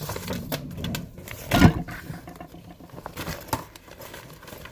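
A child's short, loud vocal outburst about a second and a half in, over scattered clicks and knocks of classroom activity.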